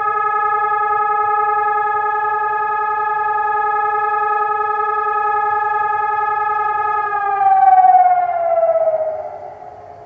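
Colsys VoiceGuard electronic siren sounding the steady continuous tone of a siren test through its horn loudspeakers, a single pitch rich in overtones. About seven seconds in, the pitch slides down and fades away, imitating a motor siren running down as the test tone ends.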